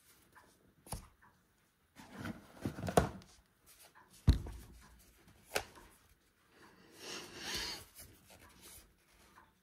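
Hands handling a DJI Remote Controller 2 and its box: rubbing and rustling with a few sharp knocks, the loudest about four seconds in as the controller is lifted out of the foam.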